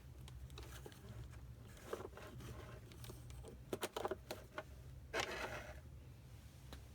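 Handling noise from a small plastic device: a few sharp clicks a little past halfway, then a brief rustle, over a steady low hum.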